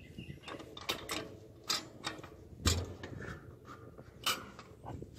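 Quarter-inch steel smoker door and its latch being handled: a few sharp metal clicks and knocks about a second apart, the loudest a dull thump near the middle.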